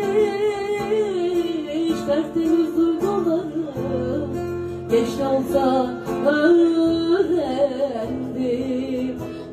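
Music: a Turkish song's instrumental close, an ornamented melody line that wavers and slides in pitch over plucked and strummed acoustic guitar accompaniment.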